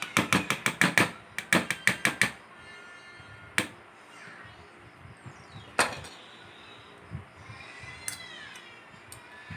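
Metal spoon clinking against a bowl while stirring ovalette into a milk mixture: a quick run of a dozen or so taps over the first two seconds, then two single clinks a couple of seconds apart.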